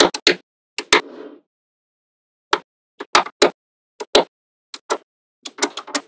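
Small magnetic balls snapping together with sharp clicks as strips of balls are pressed onto a wall of balls. The clicks come in quick pairs and clusters, with a short rattle of shifting balls about a second in and a pause of about a second before the clicking resumes.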